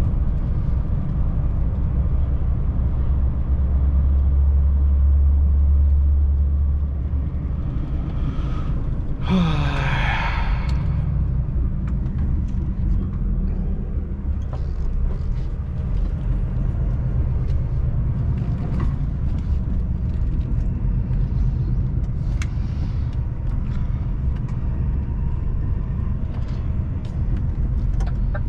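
Lorry's diesel engine and road noise heard from inside the cab while driving, a steady low drone that is louder and deeper for a few seconds near the start. About nine seconds in, a short rushing sound with a falling tone lasts about a second and a half.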